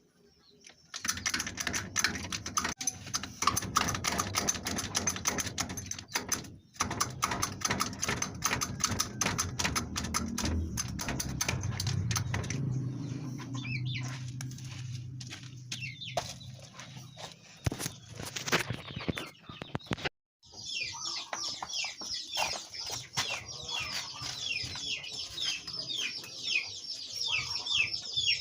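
Rapid clattering with a low hum for most of the clip. After a sudden cut, birds chirp in a quick series of falling chirps.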